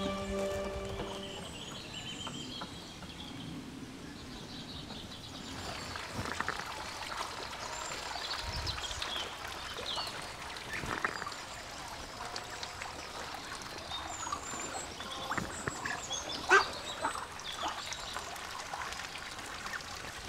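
A flock of ducks, mostly Muscovy, giving scattered short calls on the water as they crowd in to be fed, with one louder call late on.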